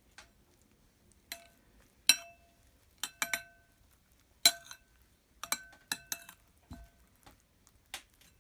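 A spoon clinking against a ringing dish about a dozen times at uneven intervals while mayonnaise is spread over a salad layer.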